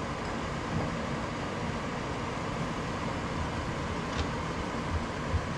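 Stone pestle working in a stone mortar, grinding sambol ingredients, with a few dull low thumps near the end, over a steady background hum.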